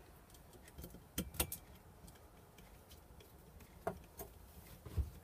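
A handful of light metallic clicks and taps as aluminium servo brackets and small machine screws are handled and fitted together, with a duller knock near the end.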